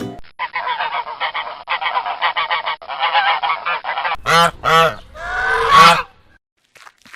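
Geese honking: a rapid run of cackling calls for about four seconds, then two loud honks and a longer harsh call.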